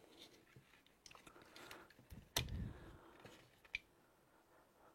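Plastic casing of a handheld GPS unit being handled and pried apart: faint scraping and small plastic clicks, with a sharp click and knock about halfway through and another click a second later.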